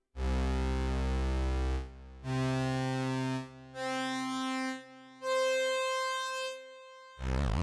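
Dave Smith Instruments Prophet 6 analog synthesizer playing a preset: four single held notes, each higher than the last, with short gaps between. Near the end a different patch with a wavering pitch starts.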